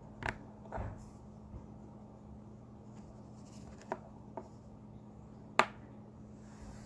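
A few sharp clicks and taps from hands handling small objects, the loudest about five and a half seconds in, over a steady low hum.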